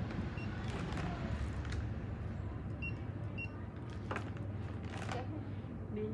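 Handheld barcode scanner beeping twice, about half a second apart, as items are scanned, with crinkling of plastic snack packets being handled over a steady low hum.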